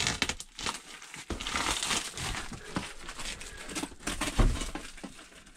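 Plastic stretch wrap on a parcel crinkling and rustling as it is handled and pulled at, with a couple of soft knocks.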